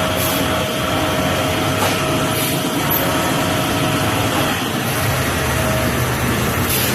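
CNC machine running steadily while machining a female fitting: an even mechanical noise with a steady whine that drops away about four and a half seconds in.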